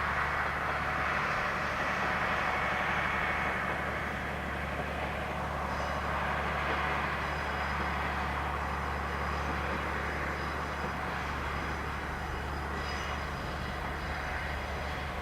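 KiHa 120 diesel railcar running along the line: a steady engine and rail sound that eases a little about four seconds in.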